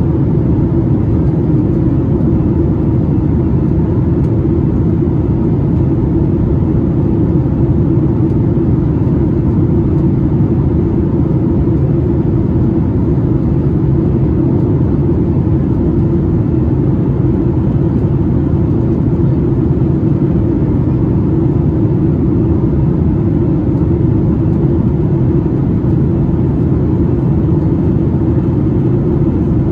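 Steady jet engine and airflow noise heard inside the cabin of a Boeing 737-8 MAX in flight, a deep, even rumble with a faint steady hum over it.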